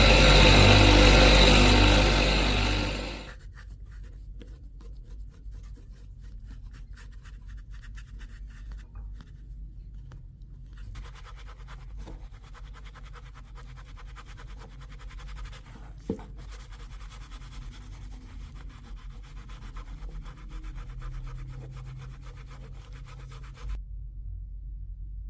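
A power tool's motor runs loudly and then winds down and stops about three seconds in. It is followed by quiet, continuous rubbing and scraping strokes of hand sanding on the rusted blade, with a single sharp click partway through.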